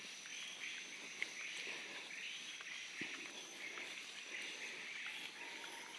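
Forest ambience: insects keeping up a steady high-pitched drone, with a few faint clicks.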